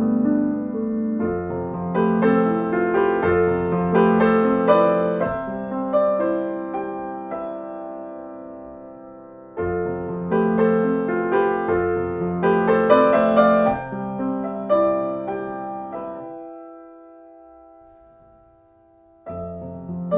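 Slow, gentle solo piano music: soft phrases of notes left to ring and fade. The piano dies away almost to silence near the end before the next phrase begins.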